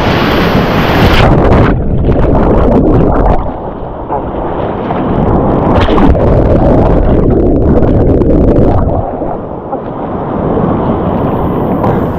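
Rushing whitewater and splashing, loud on a GoPro's microphone, from a kayak running a rapid, with rumbling buffeting on the mic. The sound turns muffled for a moment about two seconds in, and again from about four to eleven seconds in.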